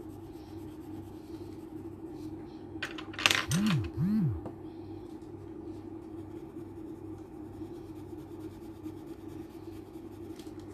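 Colored pencil shading on paper, faint over a steady low hum. About three seconds in, a sudden loud clatter, followed by two short swooping low tones.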